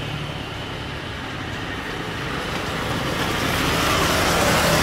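Airbus A350-941 airliner on short final approach, its Rolls-Royce Trent XWB jet engines making a steady rushing noise that grows louder over the last couple of seconds as the aircraft draws near.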